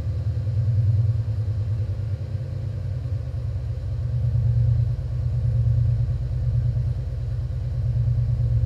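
2008 Shelby GT500's supercharged 5.4-litre V8 idling steadily through a 3-inch Bassani cat-back exhaust, a deep low rumble.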